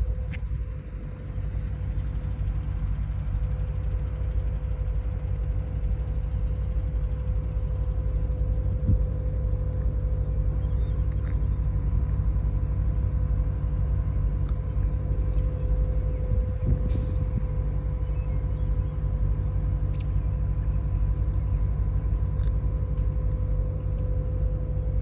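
A steady whistle-like tone held at one unchanging pitch for the whole stretch, over a low, even rumble like an idling engine. The listener takes the whistle for a flute playing folk or ritual music, though he cannot say whether it is live or a recording.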